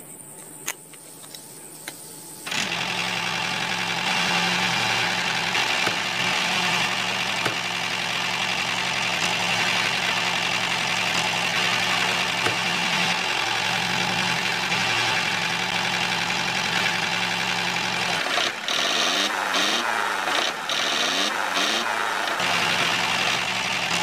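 Motor of a miniature DIY toy tractor running steadily with a low hum as it pulls a seed planter, setting in about two seconds in after a few light clicks. Near the end the sound turns uneven and wavers for a few seconds.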